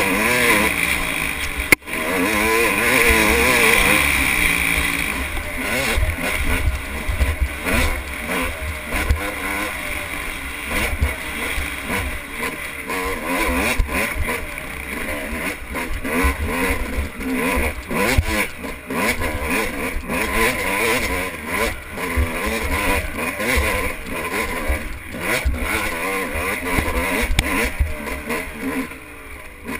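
Off-road motorcycle engine running hard, its pitch rising and falling as the throttle opens and closes, under a steady rushing noise.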